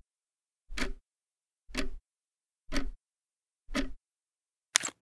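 Ticking-clock sound effect: a tick about once a second, with a sharper, brighter final tick near the end.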